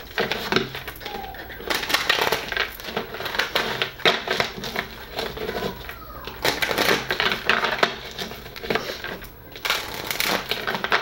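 A deck of oracle cards being shuffled by hand, riffled again and again, the cards flicking and slapping together in long stretches with short pauses between.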